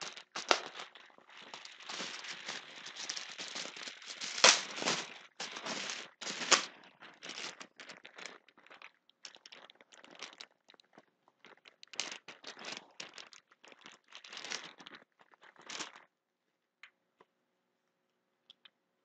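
Plastic bubble wrap crinkling and tearing as it is pulled and cut away from a small item, with two sharper cracks a few seconds in. The crinkling stops about three seconds before the end, leaving only a few faint ticks.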